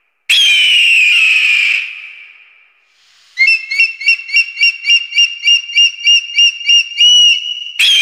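Eagle calls. A loud, high scream falls in pitch and fades. Then comes a rapid run of short piping notes, about four a second, ending in a longer note, and another scream begins near the end.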